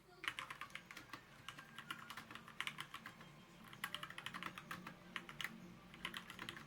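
Fast typing on a ZSA Moonlander split mechanical keyboard: an irregular, faint stream of key clicks during a typing speed test.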